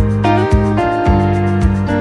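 Background music with a steady beat, sustained notes over a regular pulse of about two beats a second.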